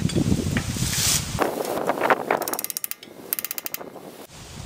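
Hand ratchet wrench clicking in two short runs of rapid, even clicks a little past the middle, after about a second and a half of low rumbling and clatter.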